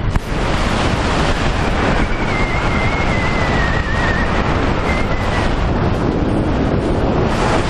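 Wind buffeting the camera microphone during a tandem parachute descent under canopy, a steady rushing noise. A thin, slightly wavering whistle sounds for a few seconds in the middle.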